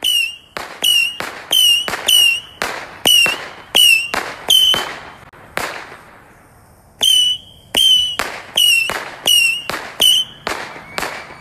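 Consumer firework firing a rapid series of sharp bangs, about two a second, each followed by a short whistle that dips slightly in pitch. The shots pause for about a second midway, then resume.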